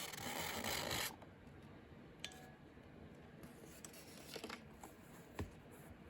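Paper rustling and sliding for about a second, then a few faint clicks and taps as the journals and their paper packaging are handled.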